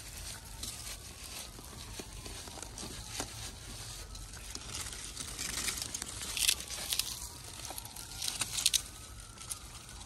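Rustling and crinkling of plant material being handled, with scattered crackles and a few louder rustles about six and a half and eight and a half seconds in.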